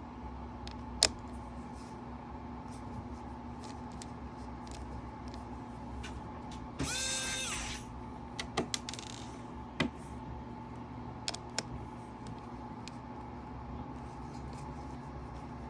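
A small electric screwdriver whirs once for about a second, its pitch sagging as it stops, during laptop disassembly. Several sharp clicks of tools and small parts against the laptop come before and after it, over a steady low hum.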